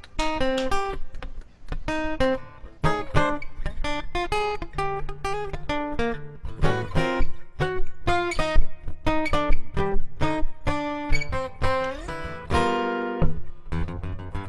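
Acoustic guitar playing an instrumental intro, picked single notes mixed with strummed chords.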